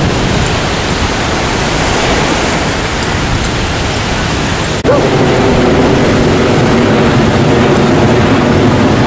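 Loud, steady rushing noise of ocean surf at the beach. After a brief break about five seconds in, a steady droning hum with several held tones joins it.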